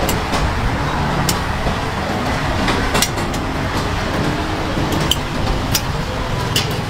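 Steady street noise with a low traffic-like rumble and hiss, broken by scattered sharp clicks.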